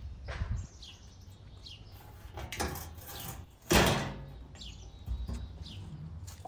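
A thin metal sheet laid over a brick tandoor as its lid, scraping on the brick rim and then landing with a loud clank about four seconds in. Small birds chirp now and then in the background.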